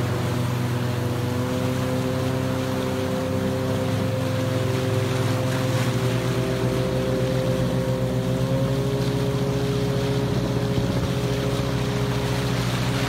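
Outboard motor running steadily at a constant speed, with floodwater splashing against the boat.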